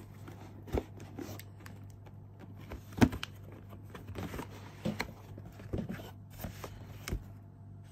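Cardboard packaging and a plastic tool carry case being handled and opened: scattered light knocks and clicks, the sharpest about three seconds in.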